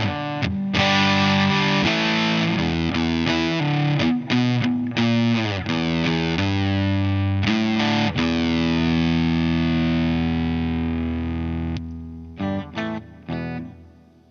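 Electric guitar played through a compressor into an overdrive, with a distorted, sustaining tone. It plays a riff of chords for the first half, then one long chord rings out and slowly fades. A few short chord stabs come near the end as the sound dies away.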